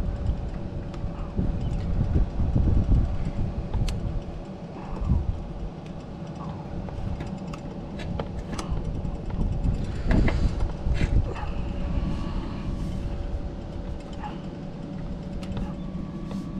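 Scattered light clicks and scrapes of a rubber grommet being worked into a plastic cable gland around a thick Ethernet cable, over a steady low rumble and a faint steady hum.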